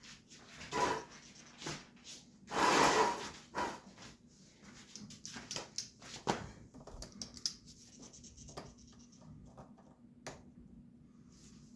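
Hand-tool handling sounds of fitting a hose clamp with pliers: scattered clicks, taps and scrapes of metal and rubber parts, with one louder rustling scrape about three seconds in.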